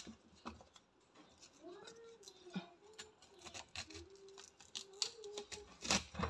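Kitchen knife cutting the leaves and stalk off a raw cauliflower on a wooden cutting board: a run of crisp cuts, cracks and knocks, the loudest just before the end. A faint wavering tone sounds under the middle of it.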